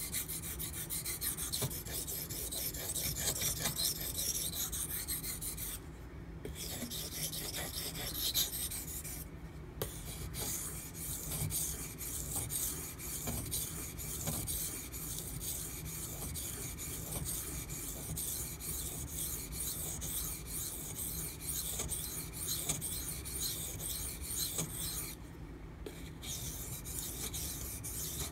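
Steel blade of a Ganzo 440C folding knife scraping back and forth in repeated sharpening strokes on a 1000-grit Nubatama Ume whetstone, with a few brief pauses between sets of strokes.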